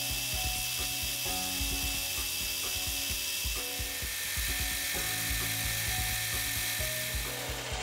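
Metal lathe running steadily while a twist drill bores the centre hole of the spinning part, chips curling off the cut.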